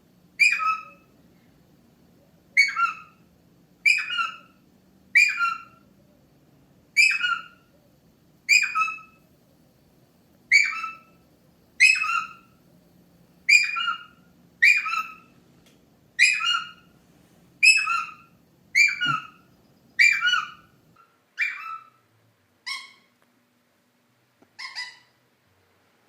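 Indian ringneck parakeet calling over and over: a short whistled call that drops in pitch, repeated about every one to two seconds, growing fainter near the end.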